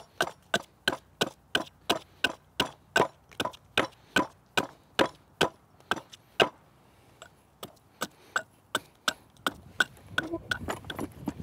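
Small bushcraft hatchet hewing down the side of a split wooden blank stood on a chopping stump: quick, regular chops, about two to three a second, then a few slower, lighter strikes in the last seconds.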